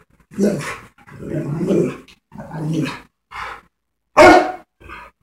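A dog barking and growling in about six separate outbursts with short gaps, the loudest about four seconds in.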